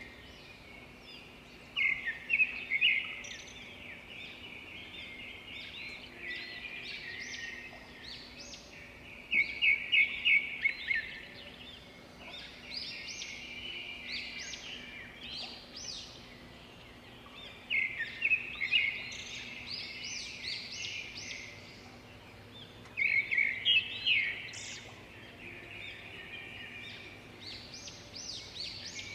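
Songbirds chirping and singing continuously, with louder bursts of rapid, repeated chirps every several seconds.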